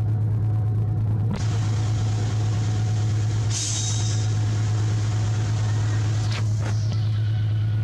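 Steady low mechanical hum, unchanging throughout, with a brief hiss about three and a half seconds in and a few faint clicks.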